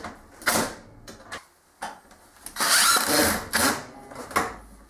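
Cordless drill driving a screw through a pipe-hanger bracket into a wooden ceiling joist. It runs in bursts: a short one about half a second in, a longer run of about a second in the middle, and a brief one near the end.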